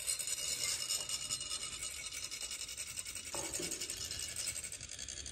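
Metal chak-pur funnels being rasped to trickle coloured sand onto a sand mandala: a steady, fine, rapid scratching.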